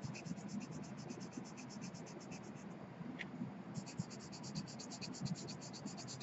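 Charcoal scratching across drawing paper in quick back-and-forth shading strokes, about eight a second. They pause briefly about halfway through with a light tick, then resume.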